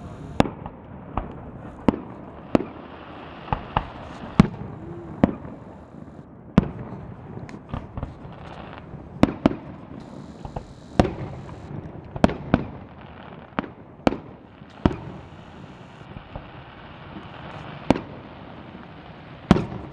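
Aerial fireworks shells bursting overhead: about twenty sharp bangs at irregular intervals, some coming in quick pairs.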